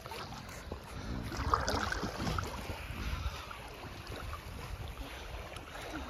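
Sea water sloshing and splashing around a man wading and a dog swimming, with wind rumbling on the microphone.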